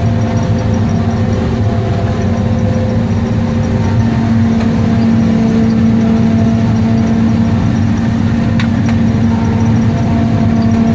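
Self-propelled forage harvester working in standing maize, heard from inside its cab: a loud, steady engine and machine drone with a strong even hum. A single short click comes about eight and a half seconds in.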